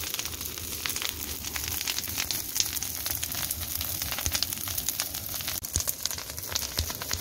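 Large bonfire of dry branches and brush burning hard, with dense, rapid crackling and popping over a steady hiss.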